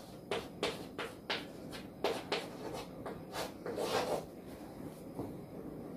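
Chalk writing on a blackboard: a run of short taps and scratches as letters and bond lines are drawn, with a longer scrape about four seconds in.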